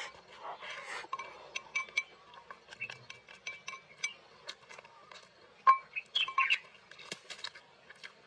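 Wooden chopsticks clicking and scraping against a ceramic rice bowl while eating, with mouth sounds of eating rice in between. The clicks come irregularly, a sharp clink about five and a half seconds in the loudest.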